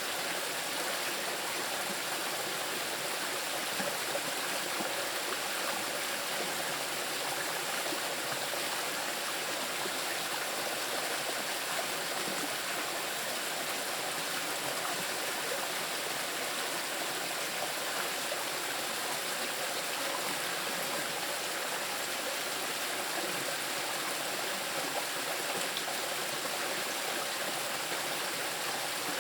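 Small river rushing and splashing steadily over rocks, a constant hiss of moving water.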